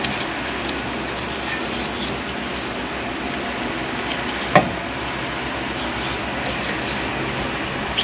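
Small metal clicks and taps as a brake caliper's slide pin and bracket are handled and turned by hand, with one sharper knock about halfway through, over a steady background hum.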